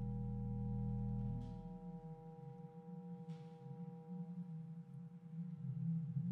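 Synthesized electronic music from a laptop ensemble: several steady high tones held over a dense low drone. About a second and a half in, the drone drops away and leaves a fluttering low tone, with two faint brief swishes.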